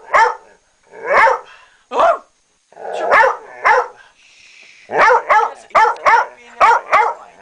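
A pet dog barking repeatedly in short, sharp barks. A few come spaced apart, then a quick run of barks follows about five seconds in. The dog is protesting at being handled.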